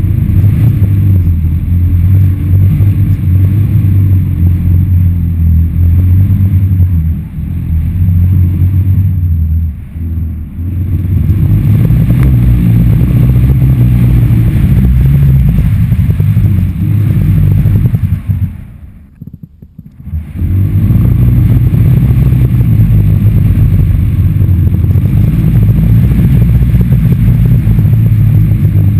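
Wind buffeting a GoPro Hero HD 2 flying on a stunt kite's lines, a loud low rumble on the camera's microphone. It eases off briefly twice and dies almost away for a couple of seconds about two-thirds of the way through, then comes back.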